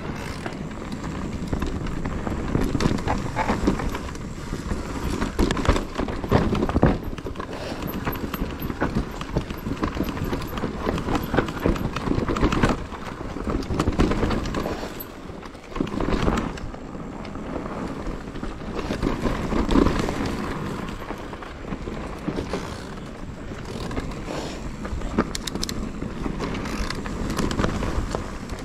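Mountain bike riding over a rough trail: tyres rolling on dirt and stones, with a constant clatter of knocks and rattles from the bike.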